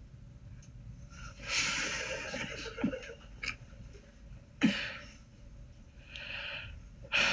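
A man's breathy vocal sound impression: a run of hissing exhalations, sniffs and sharp puffs of air, with a few mouth clicks in between.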